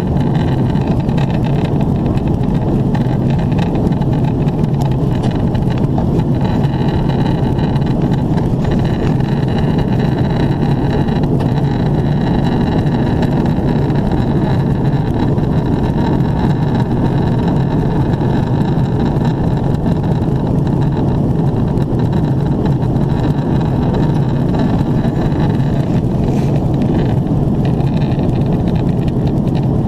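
Steady cabin noise inside an Airbus A330-300 with GE CF6 engines in descent: a low rush of engine and airflow noise heard through the fuselage, with a faint high whine above it.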